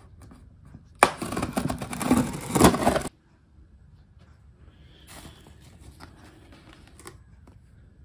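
Packaging rustling and crackling as it is handled, in one loud burst about two seconds long that starts about a second in and cuts off suddenly.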